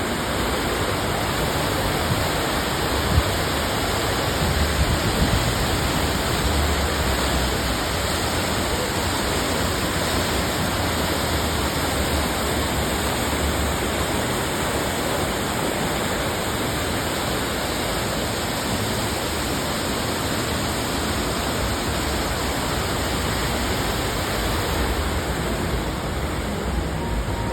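Steady rushing of a man-made waterfall cascading into a pool, with one brief knock about three seconds in.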